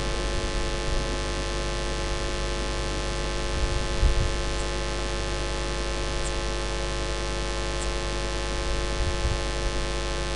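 Steady electrical mains hum and hiss from the sound system, with many evenly spaced steady tones and no other sound above it.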